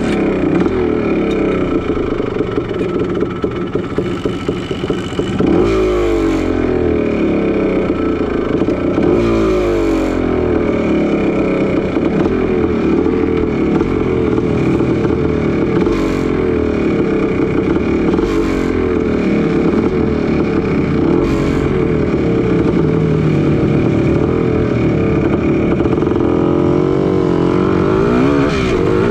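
Engine of a 1981 Suzuki PE250, an air-cooled two-stroke single, running close up, its revs rising and falling again and again with the throttle, then climbing as the bike gets under way near the end.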